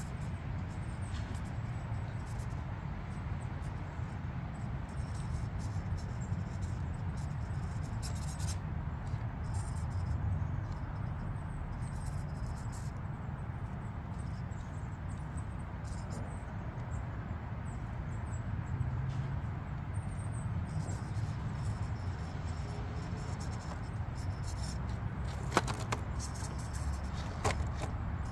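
Mini RC rock crawler with a brushed 370 motor driving slowly over rocks, a steady low rumble of motor and drivetrain. Two sharp clicks near the end as the truck tips over onto its side on the rocks.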